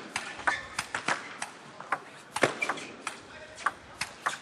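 A table tennis rally: a celluloid ball clicking sharply off rubber-faced bats and the tabletop, two to three hits a second at an uneven pace.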